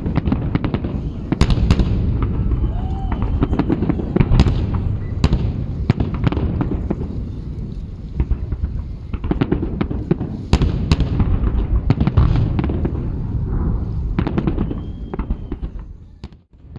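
Large aerial fireworks salute: shells bursting in quick succession, each a sharp bang, over a continuous low rumble of overlapping reports. The sound drops out briefly near the end.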